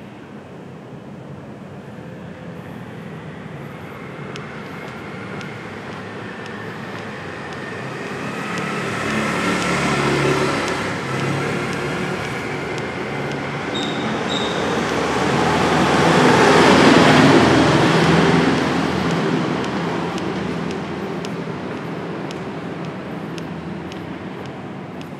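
Road traffic: vehicles passing close by with a rumble that swells twice, loudest about ten and about seventeen seconds in, then fades away.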